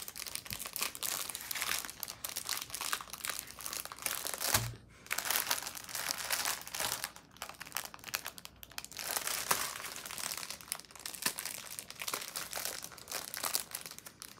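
Plastic packaging crinkling and rustling as it is handled: a bag of small plastic packets of diamond painting drills, over a canvas covered in clear plastic film. There is one soft thump a little past four seconds in.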